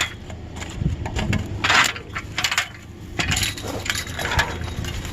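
Metal bed frame clanking and rattling as it is handled and loaded, in several separate clatters with the loudest a little under two seconds in.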